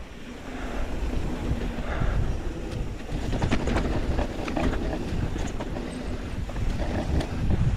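Mountain bike descending a dry dirt trail at speed: a low rumble of tyres and air, with the bike rattling and clicking over rough ground, the clatter growing busier from about three seconds in.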